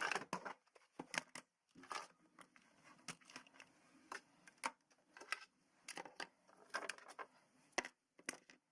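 Faint, irregular clicks and crackles, about one or two a second, like light material being handled or crinkled.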